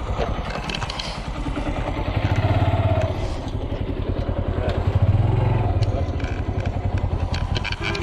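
A motorcycle engine running, its low pulsing note swelling louder twice. The microphone is muffled and rubbed by shirt fabric.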